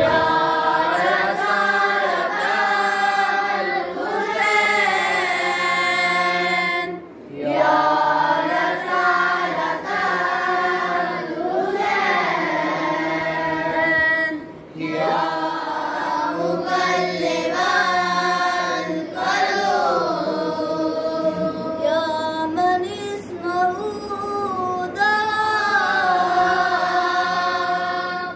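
Boys' voices chanting a prayer of supplication together in a melodic recitation, with short pauses between phrases about seven and fifteen seconds in.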